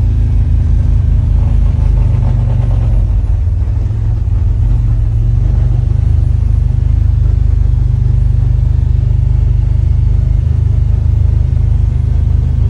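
Side-by-side UTV's engine running steadily while driving, heard from inside its enclosed cab as a loud, deep, even rumble.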